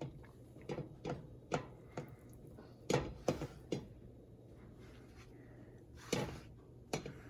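A utensil knocking and scraping in a pot as angel-hair pasta is stirred: short, scattered clicks, several in the first few seconds and a couple more near the end, over a steady low hum.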